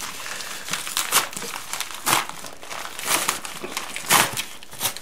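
Folding knife slitting open a padded paper mailer envelope: repeated cutting and tearing strokes about once a second, with the envelope crinkling between them.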